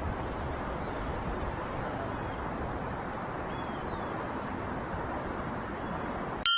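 Steady rushing background noise with a few faint, high, falling calls from birds, likely the Canada geese. Just before the end comes one bright, ringing metallic ding that is cut off abruptly.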